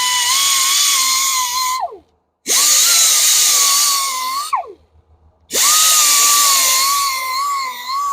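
Grinder with a surface conditioning disc grinding curb rash out of an alloy wheel, running in three bursts of motor whine and abrasive hiss. After each of the first two it winds down with a falling whine. In the last burst the whine dips and recovers repeatedly as the disc is pressed into the rim.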